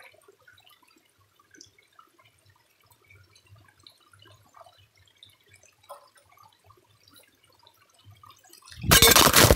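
Water dripping slowly from a Millbank filter bag into a cup: faint, scattered drips, the bag filtering only a dribble. Near the end comes a loud burst of rustling lasting about a second.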